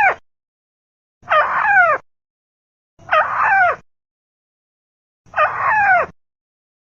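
Recorded call of a tikusan crake played as a bird lure: a short call of downward-sliding pitched notes, repeated about every two seconds with silence between. Three full calls, after the end of one at the very start.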